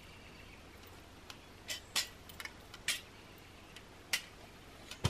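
Sharp clicks and taps of gear being handled at a backpack as a folding saw in its sleeve is pulled out. There are about half a dozen irregular clicks over a quiet background.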